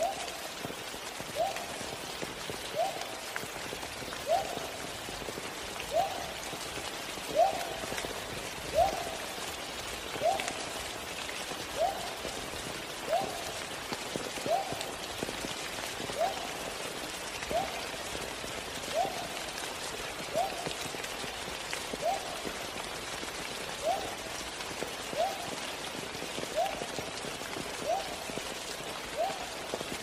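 Steady rain falling. Over it, a short, rising call repeats at a very even pace, about every second and a half; the calls are the loudest thing heard.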